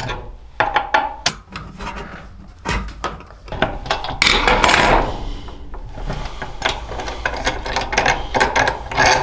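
Hand tools clicking, knocking and scraping on metal as a bolt is undone from a motorcycle's rear fender: a T-handle Allen key holds the bolt head while a socket on a T-bar turns the nut. The loudest, longest scrape comes about four to five seconds in, and the T-bar is set down on the bench partway through.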